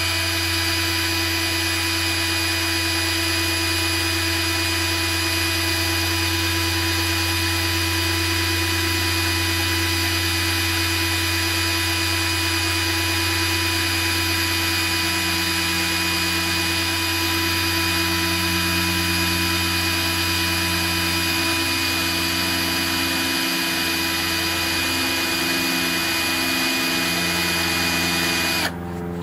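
Cordless drill running steadily at constant speed, spinning a threaded steel rod in a makeshift hand lathe while a lubricated drill bit held in pliers bores a centre hole in the rod's end. The drill's steady whine drops away near the end.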